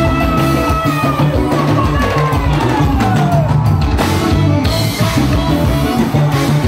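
Live band playing: drum kit keeping a steady beat under bass, electric guitar and keyboards. A held lead note slides down in pitch about two to three seconds in.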